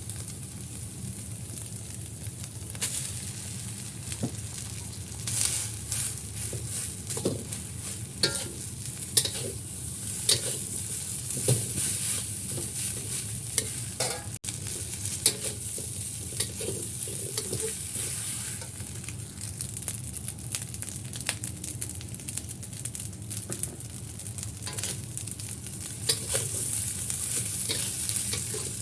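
Fried rice sizzling in a hot pan while being stirred, with a steady hiss and frequent sharp clacks and scrapes of the spatula against the pan.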